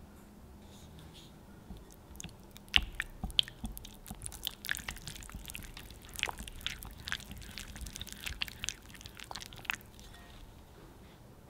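A silicone-coated balloon whisk beating softened cream cheese in a glass bowl: irregular clicks and taps of the wires against the glass over soft, sticky mixing sounds, starting about two and a half seconds in and stopping near the end.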